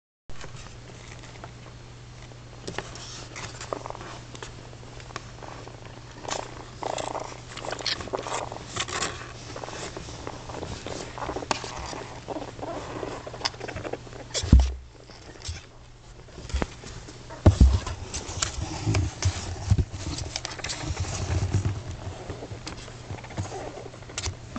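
Baby raccoons squirming in a cardboard box: claws scratching and rustling on cardboard and cloth in many short scrapes, with two heavy low thumps about halfway through, over a steady low hum.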